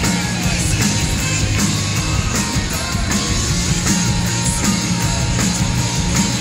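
A rock band playing loud and live: electric guitars and a drum kit in one dense, unbroken wall of sound.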